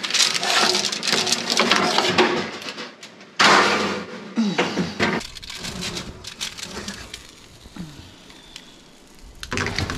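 A metal sheet pan is handled and slid into a kitchen oven, with clattering and knocks of metal and the oven door; a sudden louder burst of noise comes a little over three seconds in.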